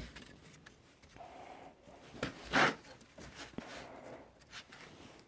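Small clicks and rustles of hands handling the parts of a stopped belt sander, with one louder short scrape a little past halfway.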